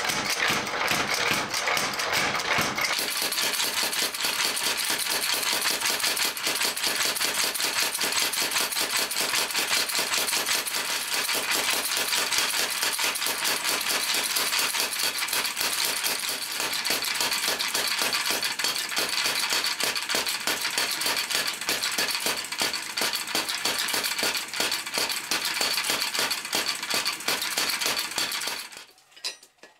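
Power hammer striking a red-hot steel bar in a rapid, steady run of blows, stopping abruptly near the end.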